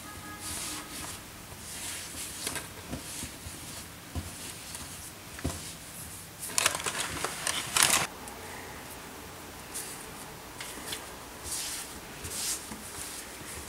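Hands kneading challah dough on a floured countertop: repeated soft pressing, rubbing and scuffing of the dough against the surface, with a louder flurry of handling about halfway through.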